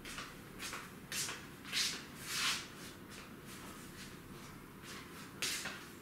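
Slippered footsteps scuffing and shuffling across a tiled floor: a run of short scrapes about half a second apart in the first couple of seconds, then another near the end.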